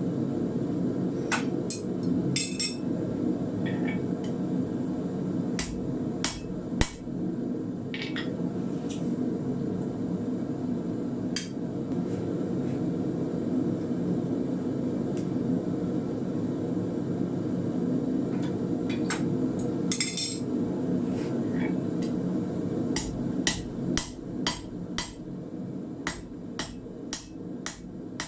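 Hand hammer striking an 8 mm square iron bar on the anvil while forging nails: scattered blows at first, then a quick, even run of blows near the end, over a steady roar.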